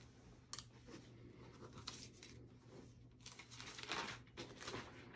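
Faint rustling of paper and shirt fabric as paper squares standing in for EKG leads are pressed onto a patient's chest, with a few soft taps and a slightly louder rustle a little under four seconds in.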